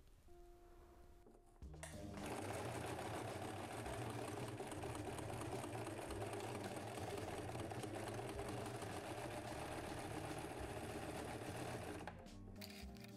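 Domestic electric sewing machine running steadily, stitching through layers of quilted fabric to close a boxed corner of a cushion. It starts about two seconds in and stops abruptly about a second before the end.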